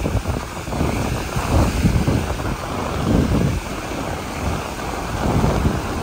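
Wind buffeting the microphone in low, gusty rumbles, over the wash of ocean surf.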